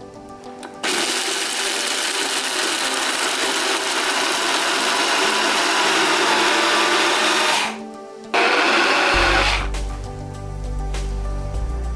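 Sencor high-speed personal blender grinding almonds, raisins and dates into crust crumbs: one long run of about seven seconds, a brief stop, then a short second pulse. Background music comes back after the blender stops.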